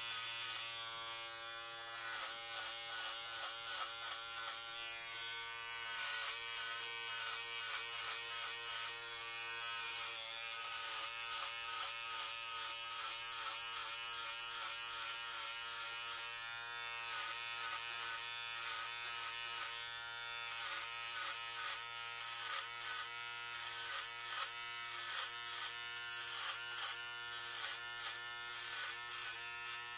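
Electric hair clippers buzzing steadily while cutting hair, the tone wavering slightly as the blades work through the hair.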